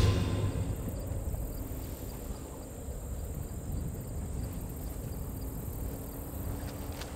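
Quiet outdoor ambience: faint, evenly repeating insect chirping over low background noise, after music fades out in the first second.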